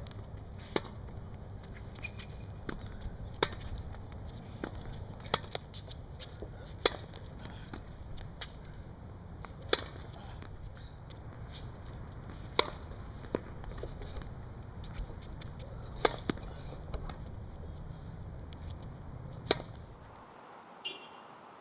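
Tennis ball being hit off racket strings and bouncing on a hard court: sharp pops every second or two over a steady low rumble. The rumble cuts off about twenty seconds in.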